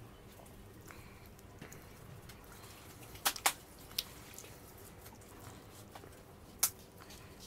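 Faint wet squishing of marinated fish pieces being pushed onto metal skewers, with a few sharp clicks: two close together about three seconds in, another a moment later, and one near the end.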